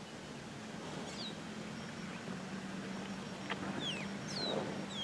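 Wild birds calling with a few short, high, downward-sliding whistles over the low steady hum of an idling engine.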